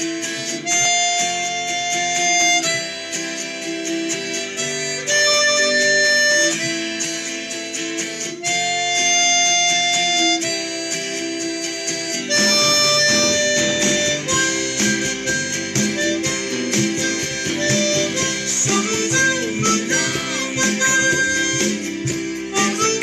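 Hohner chromatic harmonica playing a slow melody in long held notes, over a backing track with guitar that turns busier and more rhythmic about halfway through.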